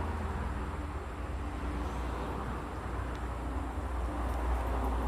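Outdoor ambience with a steady low rumble and a faint hiss, typical of traffic or wind on the microphone while walking along a road.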